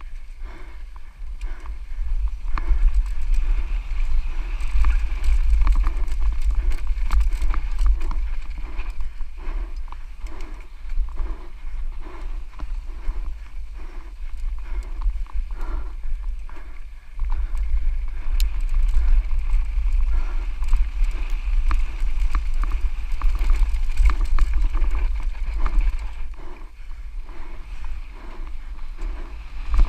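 Santa Cruz Nomad mountain bike descending a dirt trail at race speed. Wind buffets the microphone in a steady rumble, and the tyres and frame rattle and click over the rough ground. The rumble eases for a moment around halfway.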